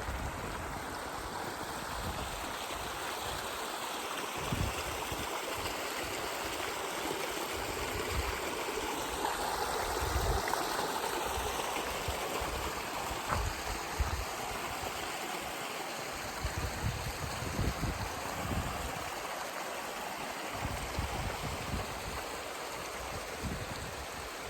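Mountain stream running: a steady rush of flowing water, with brief low rumbles now and then.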